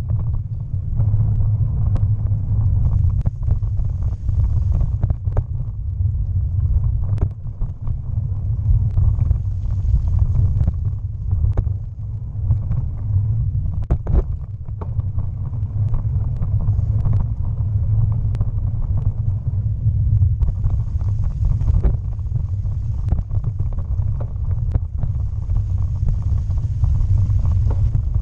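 Bicycle ride heard through a GoPro's microphone: a steady low rumble of wind and tyre noise, broken by scattered sharp clicks and knocks as the bike jolts over the towpath.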